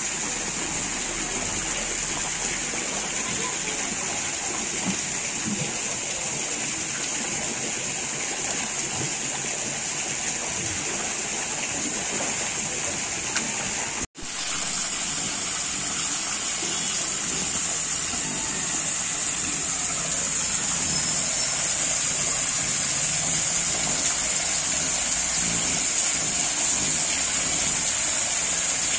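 Water pouring steadily into a shallow tiled fish tank, an even gushing hiss. It cuts out for a moment about halfway through and comes back a little louder.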